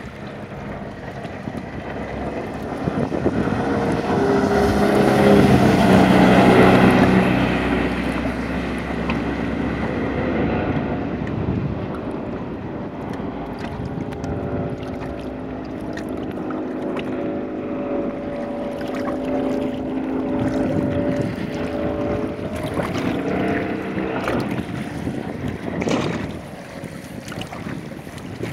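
Mercury 150 hp outboard motor running at speed on a planing boat, loudest about five to seven seconds in as it passes, then steadier as it moves off. Wind buffets the microphone.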